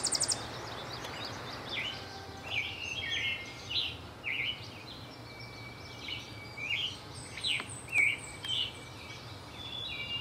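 Male scarlet tanager singing: a run of short phrases, a pause of about two seconds, then another run of four or so phrases, over a low steady background rumble. A rapid high trill from another bird cuts off just at the start.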